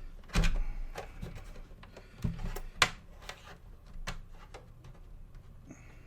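Clicks and knocks of plastic as a tight Xbox One S case is pried open, its cover clips resisting. A cluster of sharp snaps comes in the first three seconds, then a few lighter ones.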